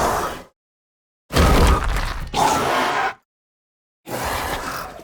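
Mutadon creature sound effects: raspy, growling creature calls with dead silence between them. The end of one call, then a loud call of about two seconds in two parts, then a quieter call starting about four seconds in.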